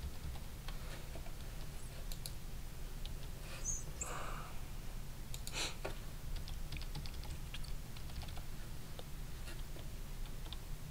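Scattered, irregular clicks of a computer keyboard and mouse over a steady low hum.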